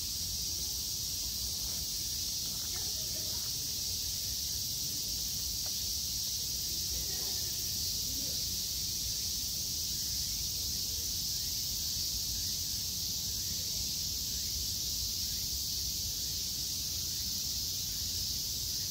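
Steady, dense chorus of cicadas buzzing in the trees, a high shrill hiss that holds unchanged throughout, over a low rumble.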